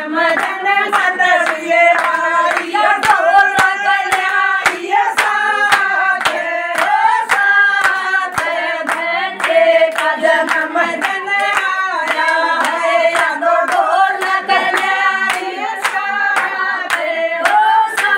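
A group of women singing a Haryanvi devotional bhajan in unison, unaccompanied, to steady hand clapping about twice a second.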